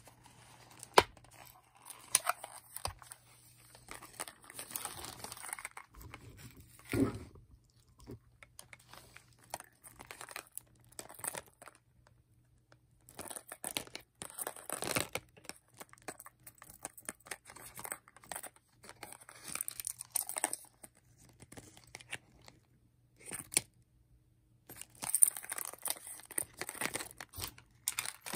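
Hands handling retail packaging close to the microphone: intermittent crinkling, tearing and rustling of plastic and card, with sharp clicks, the loudest about a second in, and short quiet pauses. Lip balms are being popped out of their plastic blister card.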